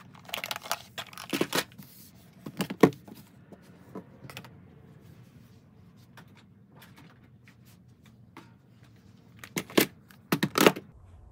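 Plastic makeup compacts and cases being handled, moved and set down: clusters of clicks, clacks and rustling, with a quieter stretch in the middle and a few sharp clacks near the end.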